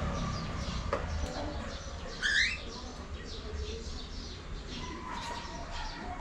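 Pet cockatiels chirping, with many short high chirps repeating throughout and one louder rising whistle-call about two seconds in. A single sharp click is heard about a second in.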